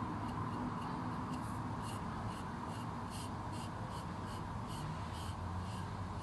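Short scratchy strokes, about two or three a second, of paint being brushed and rubbed into a scratch on the surface of a composite door, over a steady background hum.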